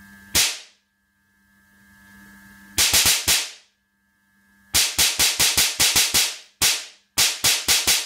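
High-voltage spark discharges: a 40 nF capacitor bank charged to 21 kV dumping into a microwave-oven magnetron, each one an extremely loud bang. About twenty sharp bangs come singly and in fast runs of four to nine, with a faint steady hum between them.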